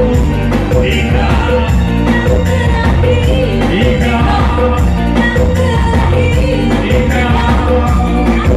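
Live dangdut music played on an organ tunggal (a single electronic keyboard), with a steady heavy bass beat and singing into microphones over a PA.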